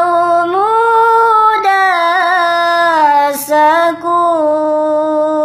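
A single voice singing a slow melody in long held notes, drawn out and gliding between pitches, with a quick breath about three and a half seconds in.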